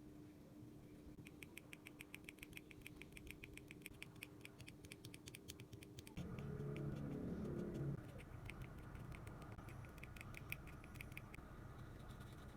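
Rapid light clicking, about ten clicks a second, in two runs. Between the runs comes a louder, duller handling sound, as of small tools or parts being moved.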